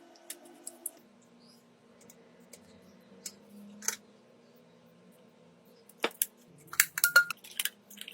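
Sharp clicks and taps of small hard objects being handled during a phone repair: a few light ticks at first, then a quicker, louder run of clicks near the end. Faint sustained background music underneath.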